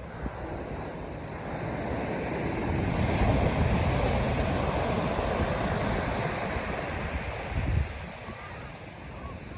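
Ocean surf breaking on the beach: a wave's rush swells to its loudest about three seconds in and slowly dies away. Wind buffets the microphone, with a brief low gust thump near the end.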